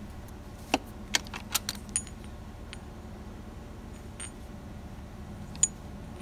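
Small metal brackets of a Wilton PowRarm clinking against each other as they are handled: a quick cluster of sharp clinks in the first two seconds, a single one near the middle and a louder one near the end, over a low steady hum.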